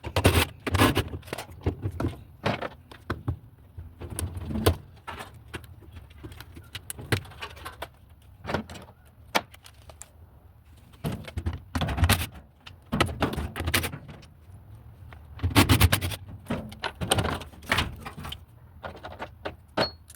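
Irregular metallic clanks, knocks and rattles of hand tools and parts while a washing machine's transmission is being unbolted and worked loose. Several loud clusters of knocks come near the start, around the middle and about three quarters of the way through.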